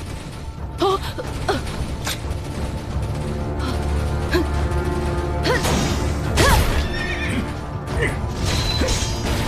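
Dramatic action music under the sound effects of an animated robot battle: sharp hits and whooshes throughout, mixed with several short cries that swoop up and down in pitch, busiest around the middle.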